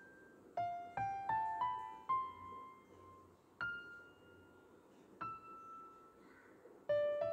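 Soft background music of single struck notes that ring out and fade, played in short rising phrases with pauses between them and a cluster of notes near the end.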